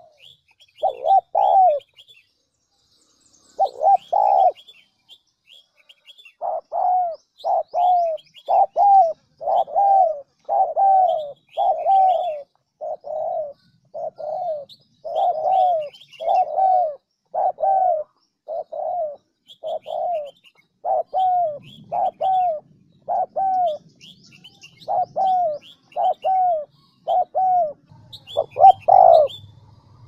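Wild pigeons cooing, a recording played as a trapping lure: a long run of short, arched notes, about one to two a second, that pauses twice near the start and then runs on, with faint high chirps of small birds behind.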